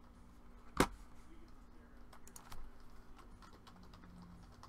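Computer keyboard typing: one sharp click about a second in, then a few faint key taps, over a faint steady hum.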